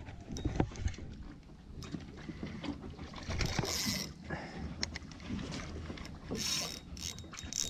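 Fishing tackle and boat handling noises while a hooked fish is played beside a small boat: scattered clicks and knocks, with two louder bursts of hissing noise about three and a half and six and a half seconds in.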